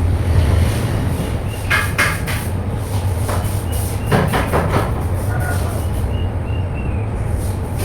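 Wet vacuum cleaner running with a steady low drone, with scattered short knocks and clicks.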